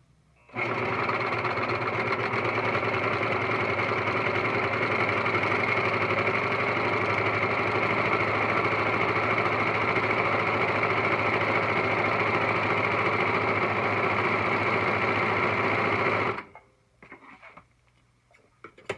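Singer Professional 5 serger (overlocker) running steadily at an even speed, sewing a 3-thread ultra stretch stitch through stretch-knit fabric. It starts about half a second in and stops suddenly a few seconds before the end.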